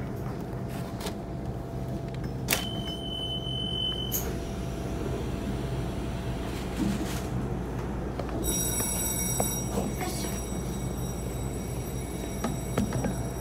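Station platform ambience beside a stationary electric train: a steady low hum from the train, a brief high beep about two and a half seconds in, and a set of steady high-pitched tones that start about eight and a half seconds in and hold.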